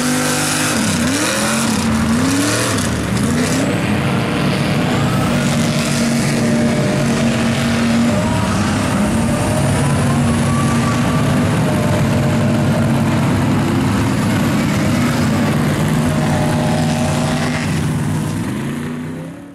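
Mud truck engine running hard at high revs, its pitch dipping and climbing back a few times near the start and then holding fairly steady; it cuts off abruptly at the end.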